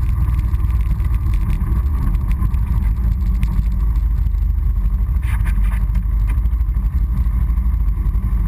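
Honda Foreman ATV's engine running steadily as the quad rides along, heard from a camera mounted on the machine as a loud, low rumble.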